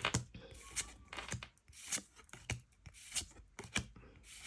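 Pokémon trading cards being slid and flicked through one after another by hand, a short sharp scrape about twice a second.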